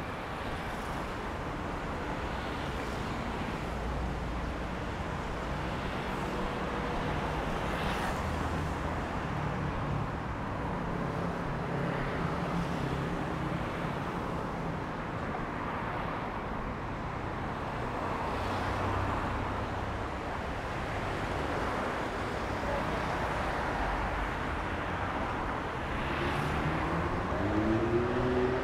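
Steady traffic on a multi-lane city avenue, cars passing one after another with tyre and engine noise. Near the end a vehicle accelerates close by, its engine pitch rising, the loudest moment.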